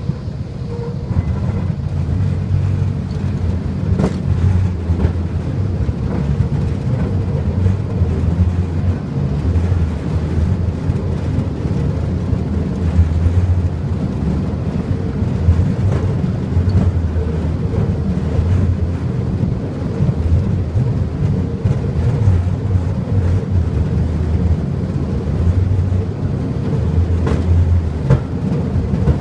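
Tourist rail cart running along the track: a steady low engine-and-wheel rumble, with a few sharp clicks.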